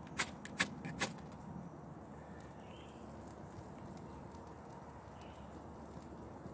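Three sharp wooden clicks in the first second as twigs and wood shavings are pressed and set onto a split-wood base to lay a small fire, then only a faint, steady outdoor background.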